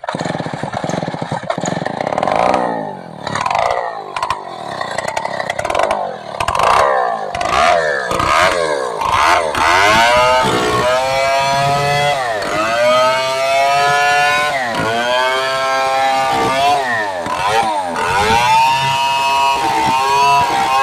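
Stihl 070 two-stroke chainsaw running hard, uneven at first, then revved again and again, its pitch rising and dropping every second or two.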